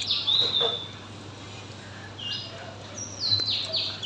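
A small bird chirping in short, high whistled notes that fall in pitch: a chirp and a longer drawn note at the start, then a quick run of three or four falling chirps from about two seconds in.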